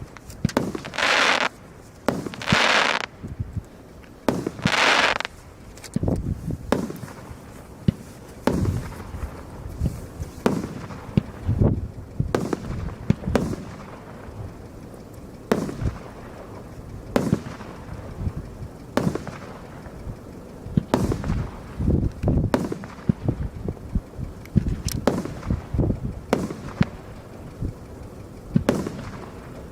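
Multi-shot consumer firework cake firing: a few long hissing shots in the first five seconds, then a long irregular string of sharp bangs, often more than one a second.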